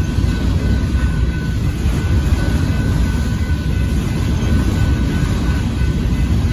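Union Pacific grain train's covered hopper cars rolling past, a steady loud rumble of steel wheels on rail.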